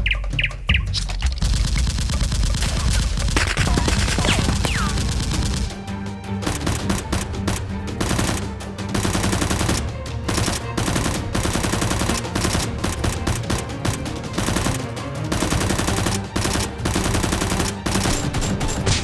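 Rapid bursts of automatic gunfire sound effects over background music with a steady low bass.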